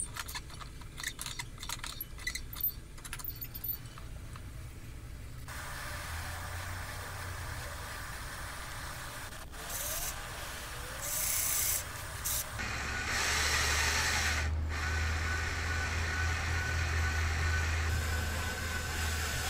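Light clicks of thin metal wire being handled in a bench vise. Then, from about two-thirds of the way in, a Ridgid cordless drill runs steadily, spinning a hook in its chuck to twist two strands of wire together.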